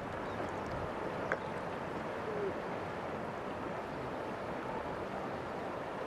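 Steady, even rush of fast-flowing river water, with one light click about a second in.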